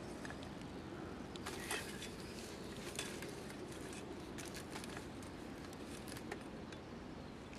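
Faint scattered clicks and light taps over a low, steady background hiss.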